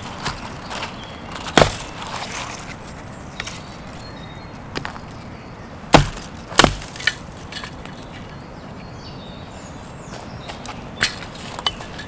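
Hatchet chopping at a thin branch held upright against a tree stump: a sharp chop about a second and a half in, then two more in quick succession about halfway through, with smaller cracks and snaps of wood between.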